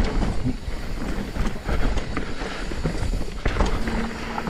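Mountain bike rolling over rough trail: irregular knocks and rattles from the bike over a steady low rush of tyre and wind noise on a chest-mounted action camera.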